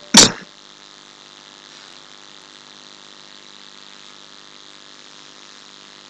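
A single short knock about a quarter of a second in, then a steady low hiss of background noise.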